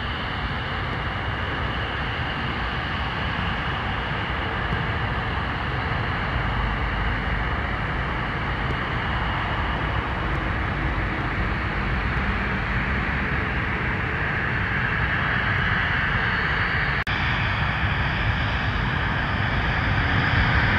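Jet engines of a twin-engine regional jet running on the runway: a steady whine and rumble that grows louder over the last several seconds.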